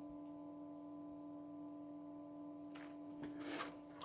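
A faint steady low hum with a few fainter overtones, with brief faint handling noises about three seconds in.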